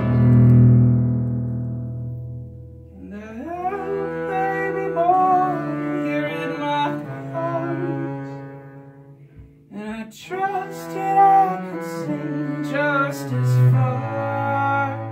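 Live acoustic folk song: a man singing over acoustic guitar and a bowed upright bass holding long low notes. The bass sounds alone at first, and the voice comes in about three seconds in and pauses briefly near the middle.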